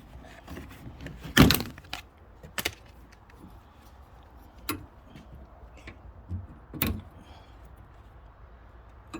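Scattered clicks and knocks of plastic clips and a wiring connector being worked loose from the car's trunk lid hinge area, with the sharpest knock about a second and a half in and another near seven seconds.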